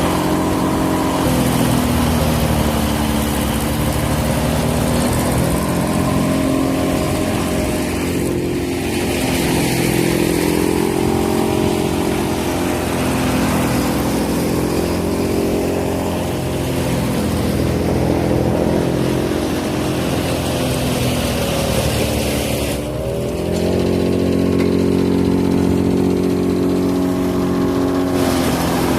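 Engine of silage-making farm machinery running steadily under load. About three-quarters of the way through, its pitch sags briefly and then recovers.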